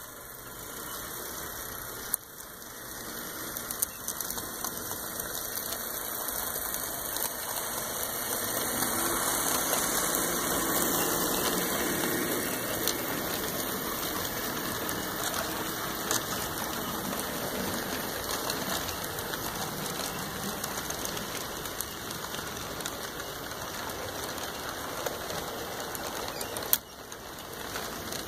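HO scale model freight train rolling along the layout track: a steady rolling clatter of small metal wheels on the rails, building as the train draws near and then holding, with a few sharp clicks.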